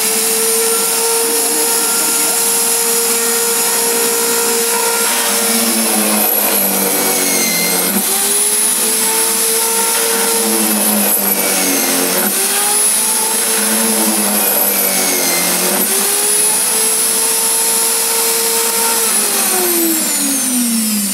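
Corded electric hand drill in a drill-press stand, running with a steady whine. Its pitch sags three times as the bit bores into a wooden strip, and it winds down near the end as it is switched off.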